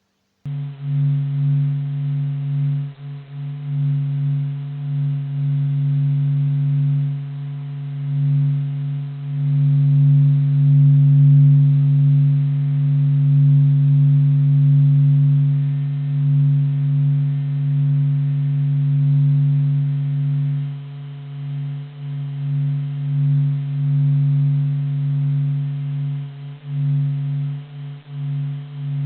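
Sonified solar oscillations: a steady low hum made audible from SOHO's Michelson Doppler Imager measurements of the sun's surface vibrations. It is a few held deep tones that slowly swell and fade in loudness.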